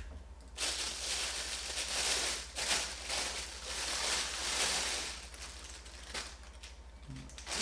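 Packaging rustling and crinkling as it is handled and pulled away from the camera, in uneven bursts for about five seconds, then quieter; a steady low electrical hum underneath.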